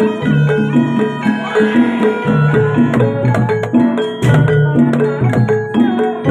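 Javanese jaranan gamelan music: hand drums beating a quick rhythm under struck metal gamelan notes repeating in a cycling pattern.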